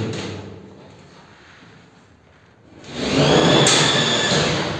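Cordless screwdriver driving screws up through gypsum board into a metal ceiling channel: the motor whine winds down in the first second, then about three seconds in the driver spins up again for a screw, with a sharp click partway through.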